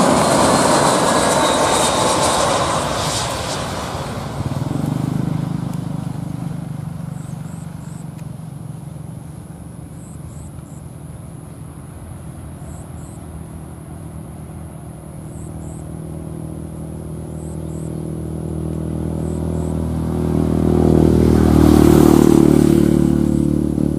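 Airbus A320 jet engines passing close on final approach, a loud even rush with a falling whine that fades over the first several seconds. A lower steady hum follows, then the engine noise swells again to its loudest near the end.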